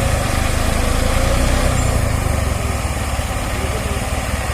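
Diesel engine running steadily with a fast, even chugging, easing a little in loudness about a second in.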